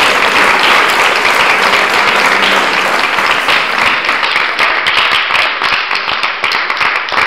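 Audience applauding, a dense even clapping that thins into more scattered claps over the last few seconds.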